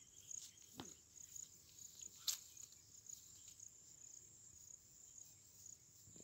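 Faint insect chirping, a steady high pulsing trill, with one sharp click about two seconds in.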